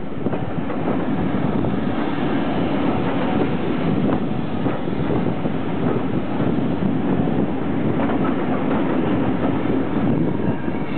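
Running noise of a passenger coach, heard from an open carriage window: a steady rumble of wheels on the rails, with scattered clicks as the wheels pass over joints and pointwork.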